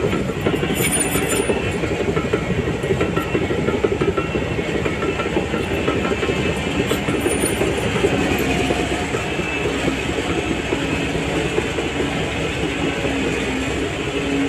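Shantui DH17C3 crawler bulldozer at work, its diesel engine running steadily under load while the steel tracks clatter and clank.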